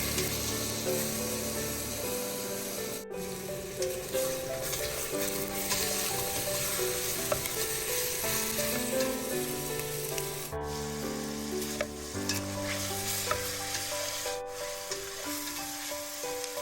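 Food sizzling as it fries in a pan, a steady hiss under a background music melody. The sound drops out for an instant three times.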